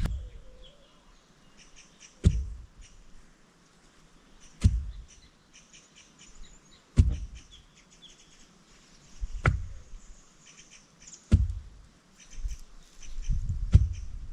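Six heavy knocks, one every two to two and a half seconds, with birds chirping faintly throughout.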